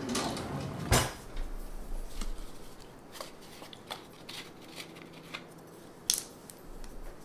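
Kitchen handling noises as measuring spoons and a vanilla bottle are picked up and set down on the counter: a knock about a second in, then scattered light clicks, and a sharp click about six seconds in.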